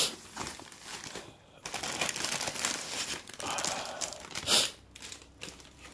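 Plastic packing bags and a foam wrapping sheet crinkling and rustling in irregular bursts as a boxed gaming chair is unpacked, loudest about four and a half seconds in.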